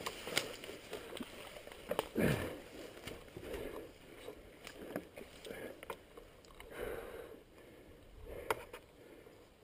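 Scattered knocks, rattles and rustling in grass as a fallen Kawasaki KLR650 dual-sport motorcycle is hauled back upright, engine off, with one louder scrape about two seconds in.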